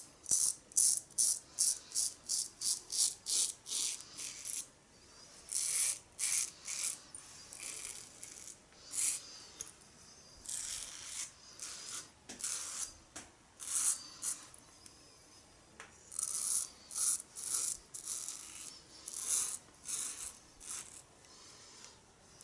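Merkur Futur adjustable double-edge safety razor scraping through two days' stubble under shaving-cream lather. It comes in runs of short, quick strokes, about three a second at first, with brief pauses between the runs.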